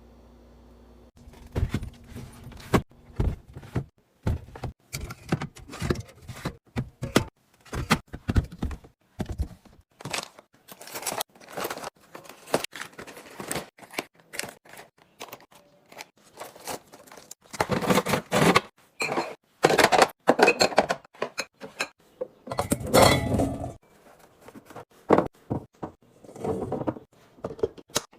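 Packaged food and containers being handled and set down while restocking a refrigerator: a long run of irregular knocks, clicks and clinks, with two longer noisy stretches of about a second each.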